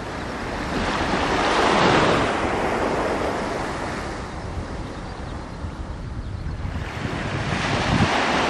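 Wind rumbling on the microphone, with a rushing noise that swells about two seconds in, dies down, and rises again near the end.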